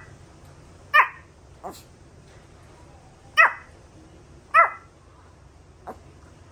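Young Bichon Frise barking upward in short, high yaps that each drop in pitch: three sharp barks and two softer ones. These are demanding barks asking to play.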